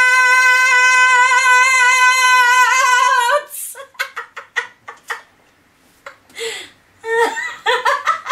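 A woman's voice singing one long, high held note that stays at a steady pitch and cuts off about three and a half seconds in, followed by short bursts of laughter.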